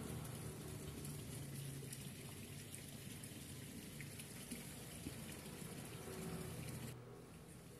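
Steady rushing hiss of running water, which drops away suddenly about seven seconds in.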